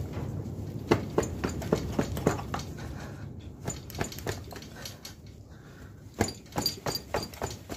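Hand tools clicking and tapping against metal parts of a 150cc Lifan ATV engine being taken apart. There is a run of sharp clicks about a second in, a few more around four seconds, and a quicker run near the end.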